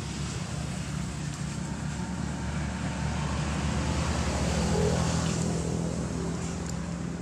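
A motor vehicle's engine hum, swelling to its loudest about two-thirds of the way through and then easing off.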